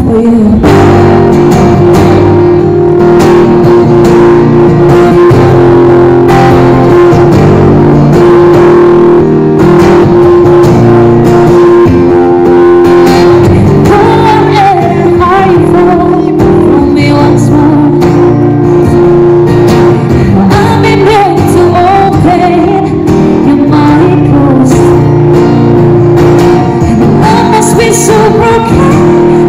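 A woman singing and playing an acoustic guitar, her voice amplified through a microphone and a small speaker. It is one continuous song.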